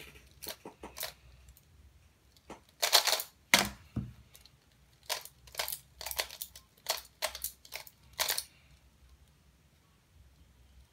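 Aoyan Skewb being twisted: quick clicks of plastic pieces turning, in short runs, with the loudest knock about three and a half seconds in.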